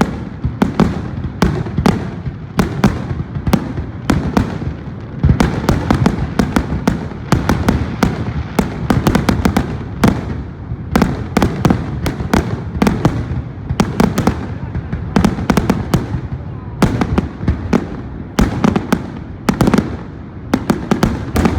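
Fireworks display: a rapid, continuous barrage of sharp bangs and crackles in dense clusters, over a steady low rumble of echoing explosions.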